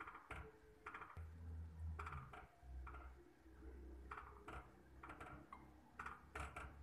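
Wooden spatula stirring a thick porridge of mung beans and sticky rice in an enamel pot, with faint, irregular scrapes and knocks against the pot. A low rumble sets in about a second in.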